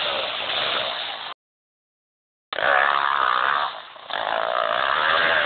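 Yamaha YZ250F four-stroke single-cylinder motocross bike engine revving up and down while being ridden, with the pitch wavering as the throttle opens and closes. The sound cuts out completely for about a second partway through, then returns.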